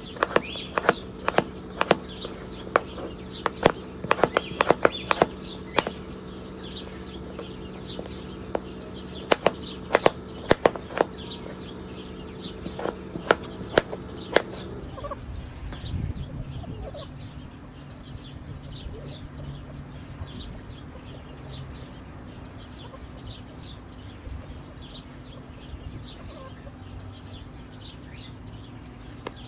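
Chef's knife cutting raw potatoes on a plastic cutting board: sharp knocks of the blade against the board, quick and loud for about the first half, then fainter and sparser, with a tomato being cut near the end. A steady low hum runs underneath.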